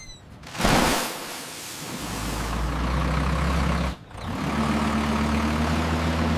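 A sharp hiss, then a heavy vehicle engine running with a steady low hum. It breaks off briefly about four seconds in and starts again.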